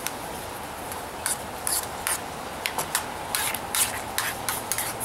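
Metal spoon scraping and clinking against a steel canteen cup as pine needles are stirred and pressed down into hot water to steep. Short irregular scrapes start about a second in and come two or three a second.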